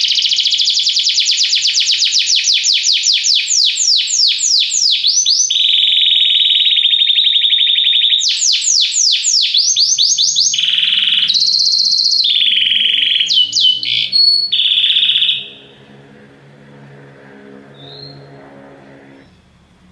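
Belgian canary singing a loud song of rolled trills: each phrase is a fast run of one sweeping note repeated many times a second, then the song switches to another trill. The song stops about three quarters of the way in, leaving a faint low hum.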